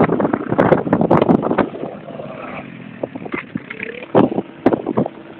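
ATV (quad bike) engines running out on the dunes, heard under heavy wind buffeting on the microphone that comes in gusts, loudest in the first second and a half and again about four seconds in.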